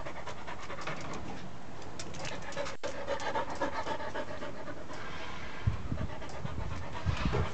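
Dog panting rapidly with its mouth open, with a few low bumps near the end.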